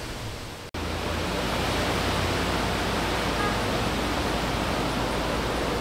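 Steady rushing wind noise on an outdoor microphone, with a low rumble. It starts abruptly after a brief gap about a second in.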